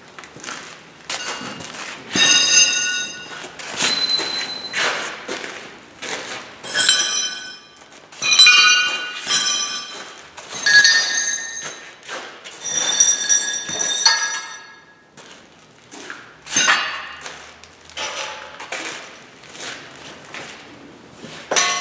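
Cut steel strips clanging against metal, about a dozen knocks, each ringing on briefly at a few clear pitches.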